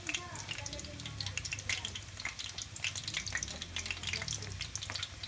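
Breaded pork chops frying in oil in a wok, with a steady, dense sizzle and crackle.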